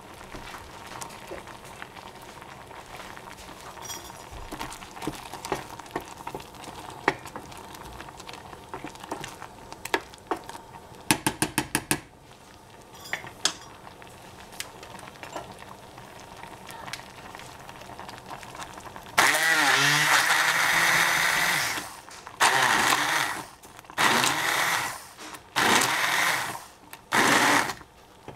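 Hand-held immersion (stick) blender puréeing stewed strawberries and apricots in a stainless steel saucepan. It starts about two-thirds of the way in and runs in short bursts of a second or two, its motor pitch wavering as it chops through the fruit. Before that there is only a low background with a quick run of about six clicks near the middle.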